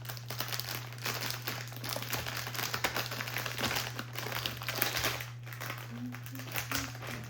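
Plastic wrapper of a Peeps marshmallow candy package crinkling irregularly as it is handled and opened.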